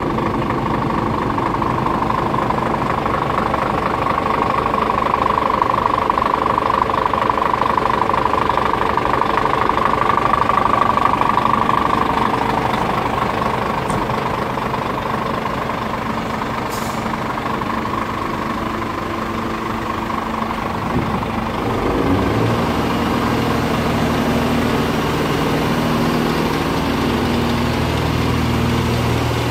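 Scania P410 tractor unit's 410 hp diesel engine idling steadily. Its low running note becomes fuller and louder about three-quarters of the way through.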